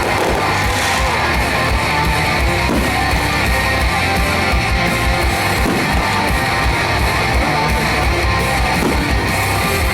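Music: a pop song's instrumental passage led by strummed guitar, with no singing.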